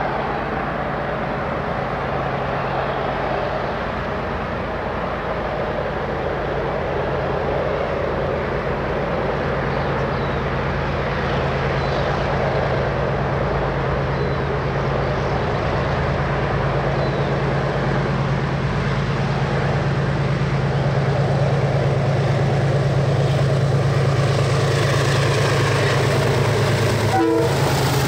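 A diesel locomotive's engine working at full power: a steady, deep drone that grows somewhat louder over the second half, briefly broken about a second before the end.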